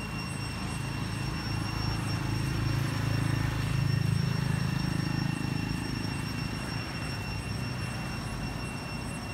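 Low engine rumble from a distant motor, swelling to its loudest about four seconds in and then easing off, with steady high-pitched tones above it.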